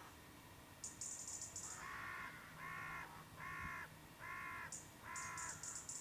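A crow cawing five times in an even series, about one caw a second, with thin high-pitched chatter just before the caws and again near the end.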